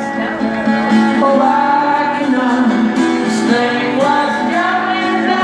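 Live rock band music over a PA: strummed acoustic guitar under a sung vocal line, with the band playing along.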